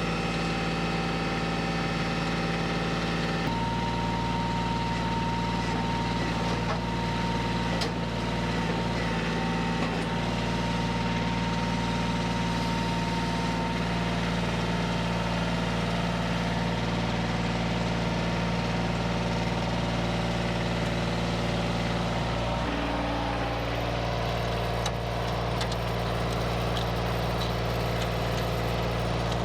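Kioti CK2610 compact tractor's diesel engine running steadily while its loader lifts a heavy log. Its note shifts about three seconds in and again near the end.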